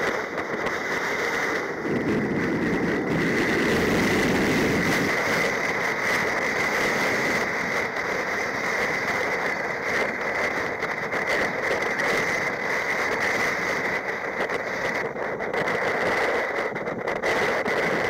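Rough surf breaking and washing over a rocky shore, with wind rushing on the microphone; the low rush is heaviest a few seconds in. A thin steady high tone sits under the noise.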